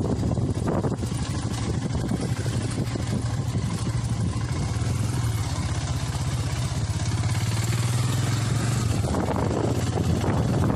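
Royal Enfield Himalayan's single-cylinder engine running steadily while riding, with rapid even firing pulses. Wind buffets the microphone, more strongly near the end.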